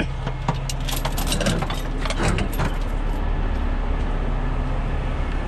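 Truck engine idling steadily, with a few sharp metal clinks from the tow truck's chains and hooks in the first couple of seconds.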